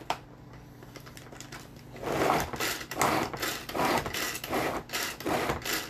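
A Tupperware Power Chef pull-cord chopper: a click as its lid goes on, then from about two seconds in the cord is pulled over and over, about two pulls a second, each one a short whir of the blades chopping cranberries.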